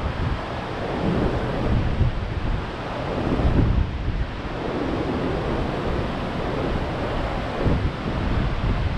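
Rough Gulf of Mexico surf breaking and washing onto the beach in rows, stirred up by a tropical storm offshore, with strong wind buffeting the microphone in gusts.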